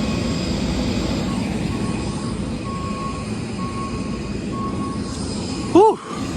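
Steady engine drone, with a high electronic beep repeating about once a second from about two seconds in. A short shout of "woo" near the end.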